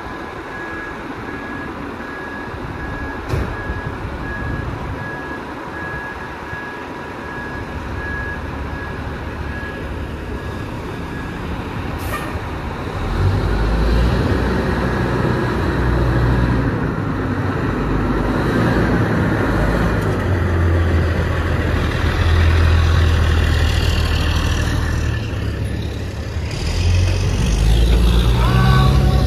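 Fire apparatus engines running and pulling out, with a steady beeping for the first ten seconds or so and a sharp sound about twelve seconds in. The engine rumble grows much louder about thirteen seconds in as the rigs move off, and a siren starts to wind up right at the end.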